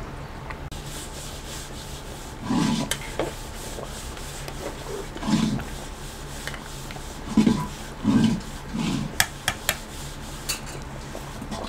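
A metal ladle stirring a thick chicken and potato curry in a large metal pot, rubbing and scraping against the pot in about five short strokes, followed by a few light metallic clinks near the end.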